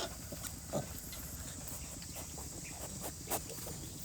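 Pigs giving a few short grunts over a steady hiss of rain.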